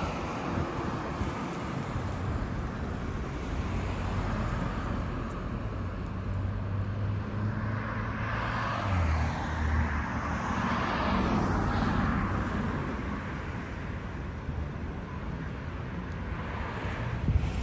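Road traffic on a multi-lane street: a steady wash of tyre and engine noise, with a vehicle's engine hum swelling as it passes about eight to twelve seconds in.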